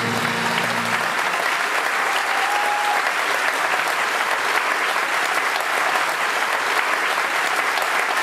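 Large theatre audience applauding in a dense, steady wave at the end of a song. The band's held final note dies away about a second in, leaving only the applause.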